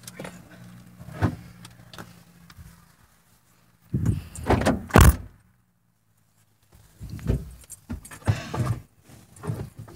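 A car door is pulled shut from inside with a loud slam about five seconds in, amid rustling and knocks of people shifting inside the car. A low steady hum stops about three seconds in.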